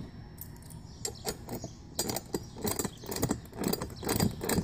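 Light metallic clicks and rattles of small hardware as a thin nylon-insert lock nut is threaded by hand onto the pivot bolt of a steel windshield brace hinge. The clicks are irregular, sparse at first and coming more often from about two seconds in.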